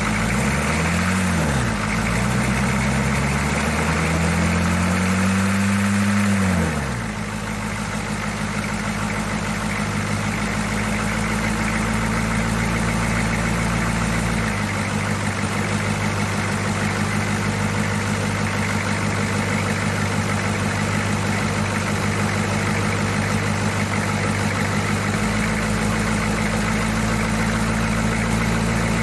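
1982 Chevy C10's 6.2-litre V8 diesel engine revved briefly twice, a short blip about a second in and a longer one peaking around six seconds, then dropping back to a steady idle with an even diesel pulse.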